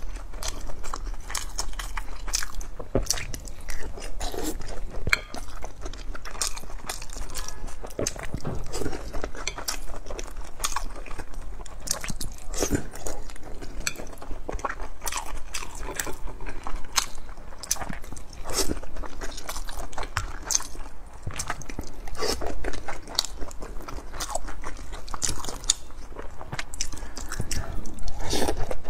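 Boiled dumplings being eaten: chewing, biting and wet mouth sounds, with many small clicks and smacks in a steady run.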